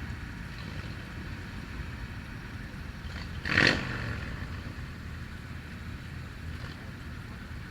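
125cc motorcycle engine running steadily with a low rumble and hiss, and one short, loud burst of sound about three and a half seconds in.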